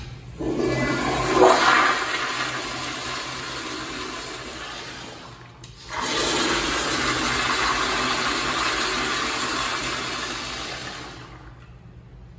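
Toto CT705 toilet flushed twice by its manual flushometer valve. A rush of water starts about half a second in and fades after about five seconds. A second flush starts about six seconds in, runs about five seconds and dies away near the end.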